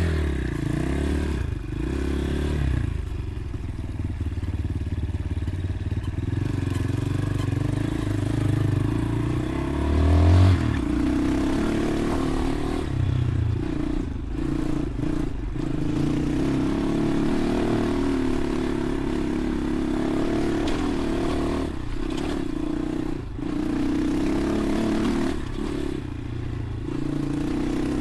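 Motorcycle engine running while riding, its pitch rising and falling as the throttle opens and closes, with a low rumble underneath and a brief louder surge about ten seconds in.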